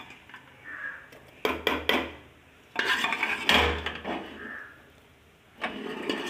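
A spoon clinking and scraping against dishes in a few short bouts, loudest a little before halfway, as cooked green gram is added to the paste.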